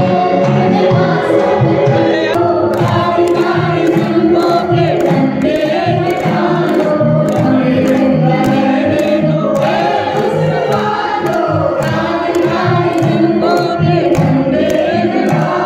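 Live Indian folk song over a loud PA system: a woman singing with drum and harmonium accompaniment, while the crowd sings along and claps steadily in time.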